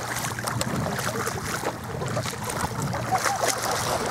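Shallow water splashing as a person and a small Maltese dog wade through it, with irregular sharp splashes from steps and paws.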